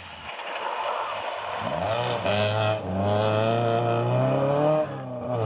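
Rally car engine accelerating hard on a gravel stage: its note climbs steeply and is held at high revs, with a brief dip in revs near the end. A burst of gravel spraying from the tyres comes about two seconds in.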